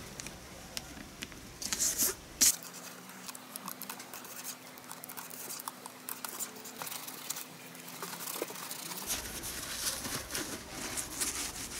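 Paper masking tape being pulled off the roll, torn and pressed down, with crinkling paper and small handling ticks; a few sharp scratchy tears about two seconds in. Near the end, a cloth rustles as it is rubbed over the wheel.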